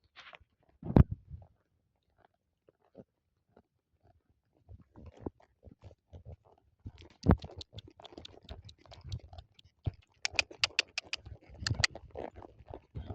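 Close crunching and clicking of chewing, sparse at first and then denser, with a quick run of sharp clicks about ten seconds in.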